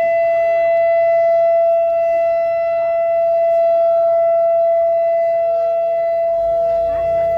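Outdoor civil-defense warning siren sounding its monthly test as a steady, loud tone, holding one pitch throughout with slight swells and dips in loudness.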